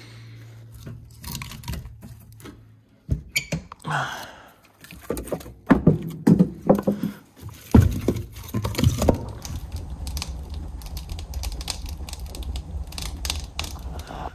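Split firewood being loaded into a cast-iron wood stove: a run of wooden knocks and thuds as logs are set in against the iron, the loudest a little past the middle. After that comes a steady low rumble with small crackles from the burning fire.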